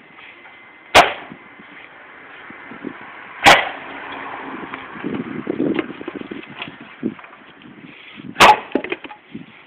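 Axe chopping firewood on a chopping block: three sharp chops a few seconds apart, the second and third coming about two and five seconds after the first, with quieter knocks of wood being handled between them.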